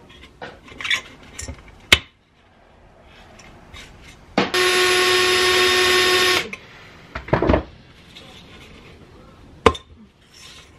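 Cordless drill running at a steady pitch for about two seconds, drilling out a rivet in a rusted metal helmet. A few sharp knocks and taps from handling the helmet come before and after.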